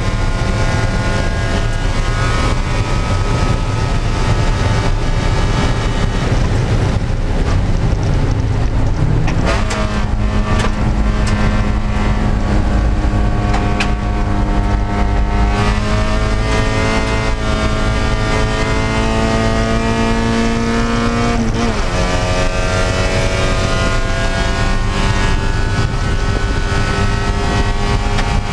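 Spec Miata's four-cylinder engine running hard under race load, heard from inside the stripped cabin with road and wind noise. Its pitch jumps up about nine seconds in, climbs slowly, then drops sharply about twenty-one seconds in as it shifts up a gear.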